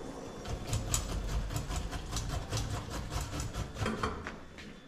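A utensil clinking and scraping irregularly against a cooking pot, the sound of shiro being stirred after water is added.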